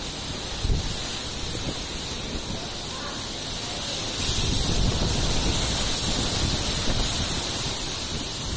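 Cyclone wind blowing hard: a steady rushing noise with gusts buffeting the microphone, growing louder about four seconds in.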